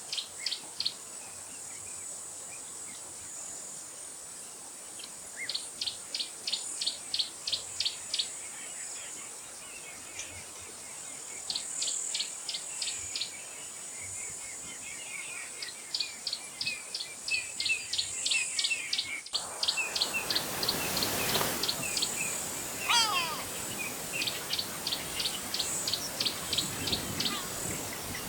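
Birds calling in quick runs of short, high, repeated notes, about six a second, over a steady high-pitched drone of insects. About twenty seconds in there is a brief rush of noise, and a little later a call that falls in pitch.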